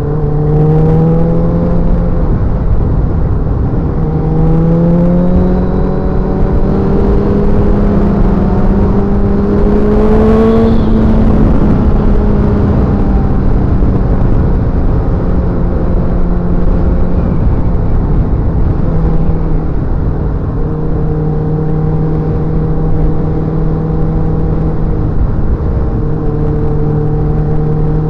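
Motorcycle engine running under way, its note climbing several times in the first ten seconds as it accelerates, peaking about ten seconds in, then easing off and holding steady.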